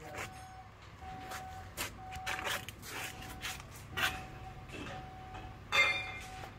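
An electronic beep repeats about once a second, each beep about half a second long, over a low steady hum. Scattered knocks and clanks come through it, and a sharp metallic clank about six seconds in is the loudest.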